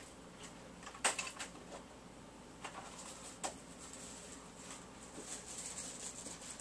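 Quiet room tone broken by a few faint, short knocks and clicks, the sharpest about a second in and two smaller ones near the middle.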